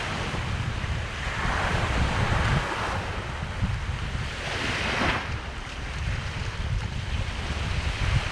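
Surf washing onto a sandy beach, with two waves swelling and breaking in turn, under a steady low rumble of wind buffeting the microphone.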